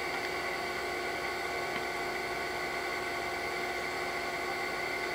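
A steady machine hum with several high, even whining tones over a hiss, unchanging throughout.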